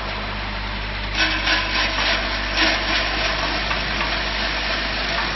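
Batch frying line machinery running with a steady electric hum, joined about a second in by a run of uneven hissing surges.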